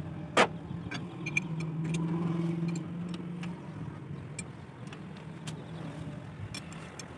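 A sharp metal knock about half a second in, then scattered light clicks of hand tools and a steel bar against the tractor's iron parts, over a steady engine hum that swells for a couple of seconds and then fades back.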